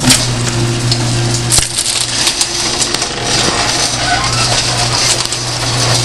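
Garage door opener running with a steady motor hum while the door rattles and clatters along its tracks as it opens.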